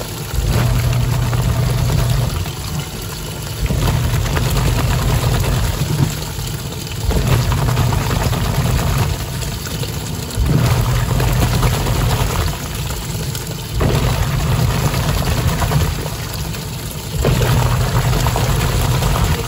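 Water churning and sloshing over a low motor hum that swells and eases in a regular cycle, about every three and a half seconds. It comes from the salt-massaging (shiomomi) of small iidako octopus.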